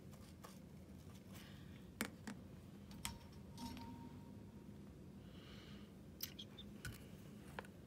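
Near silence: a low steady room hum with a few faint, separate clicks and light taps scattered through.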